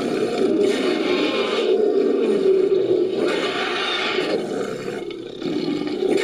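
Synthetic monster-pterosaur calls mixed from film creature sound effects: three shrill roaring screeches, each about a second long, over a steady low roaring layer that dips briefly before the last call.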